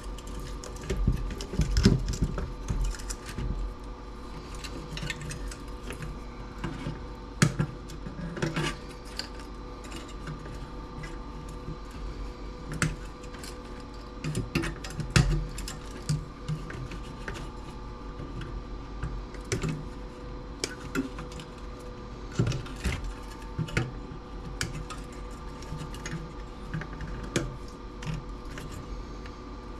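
Hand tools clicking, tapping and clattering irregularly against the small parts and chassis of a CRT TV being taken apart, with a few louder knocks, over a steady faint hum.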